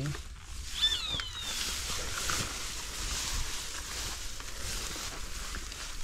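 Footsteps and rustling through tall grass and brush, with a short falling bird call about a second in.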